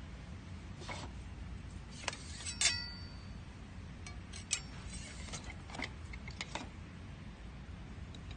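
Light clinks and taps of kitchenware being handled, with one brief ringing clink about two and a half seconds in, over a low steady hum.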